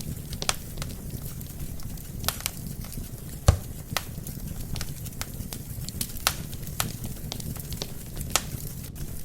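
Wood fire burning in a fireplace: irregular sharp pops and crackles of burning logs over a steady low rumble of flame. The loudest pop comes about three and a half seconds in.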